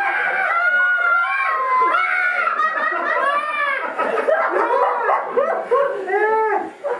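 Several people's voices laughing and chattering over one another, with no clear words.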